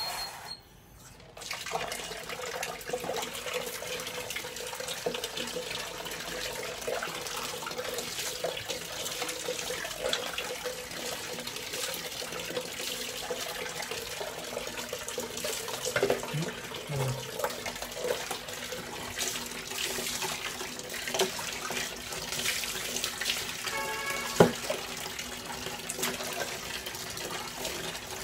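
Water running steadily from a tap into a plastic bucket and being poured from a mug over a wet dog, splashing onto the tiled floor; it starts about a second and a half in. About three-quarters of the way through there is a brief squeak and a sharp knock.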